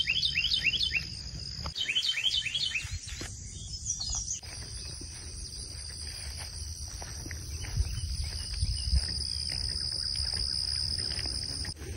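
A bird sings a fast series of repeated down-slurred whistled notes, twice in the first three seconds. Then a steady high-pitched drone of summer insects starts about four seconds in and stops just before the end.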